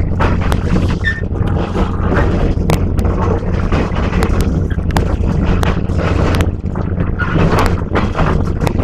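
A commuter train running, heard from inside a passenger car: a loud, steady low rumble with frequent sharp knocks and rattles from the wheels and the car body.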